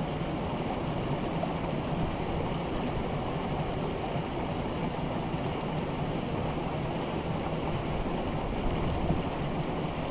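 Forest river water rushing and splashing in a steady, deep-toned rush with no break.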